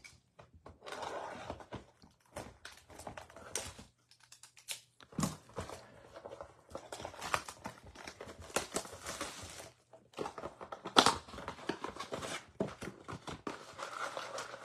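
Plastic shrink wrap crinkling as it is stripped off a cardboard trading-card blaster box, then the box's cardboard being torn open, with irregular rustling and sharp snaps; the loudest snap comes about eleven seconds in.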